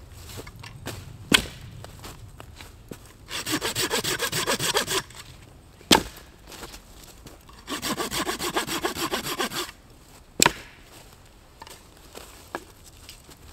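Hand saw cutting wood in two bursts of quick back-and-forth strokes, with three sharp cracks between them.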